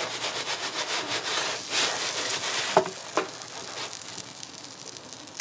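Metal pizza peel scraping and rasping across the oven's stone base as it is pushed under a pizza, followed by a couple of short knocks about three seconds in.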